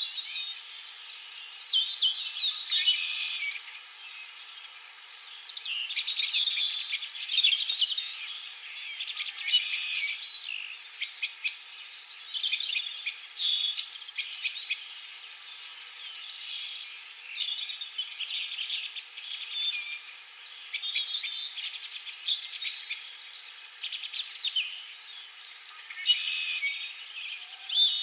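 Songbirds chirping and singing over one another, in quick bursts of high chirps that come every second or two.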